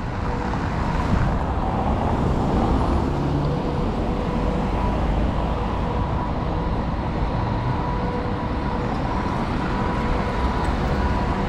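Road traffic: cars passing on a city street, a steady rumble of engines and tyres, with a faint steady whine under it.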